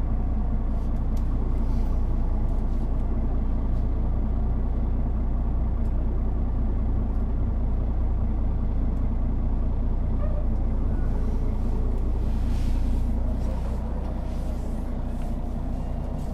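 1999 Setra S 315 NF low-floor bus's rear-mounted diesel engine idling steadily while the bus stands at a stop, a deep even hum that eases off slightly near the end.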